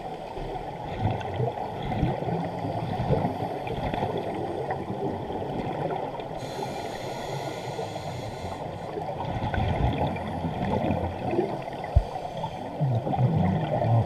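Muffled underwater sound picked up through a GoPro's waterproof housing: irregular gurgling of scuba divers' exhaled regulator bubbles, with one sharp click about twelve seconds in.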